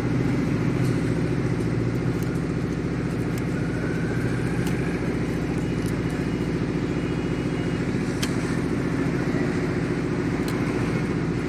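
A steady, low mechanical hum like a running motor or engine, unchanging throughout, with a few faint clicks over it.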